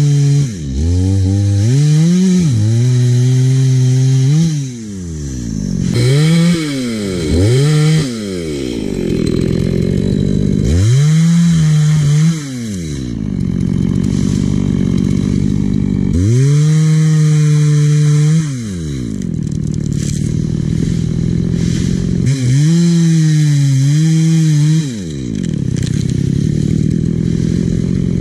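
Chainsaw engine running loud, revved up to full throttle and held, then falling back in speed, about six times over.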